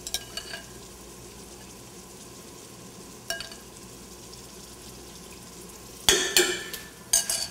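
Faint steady sizzle from a risotto pot on the stove, with a few light clinks of a spoon in a mesh strainer. About six seconds in, a metal spoon knocks and scrapes loudly against the stainless steel pot, twice, as strained mushrooms are spooned in.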